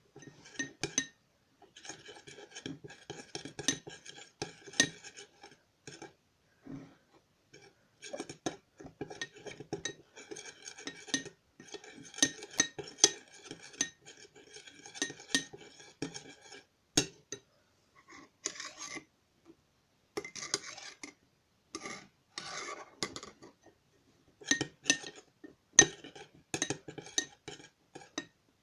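Metal spoon stirring thick pink slime mixture in a cut-glass bowl, scraping and clinking against the glass in irregular strokes with a few short pauses. This is the glue and dissolved baking-soda mix being worked until it forms slime.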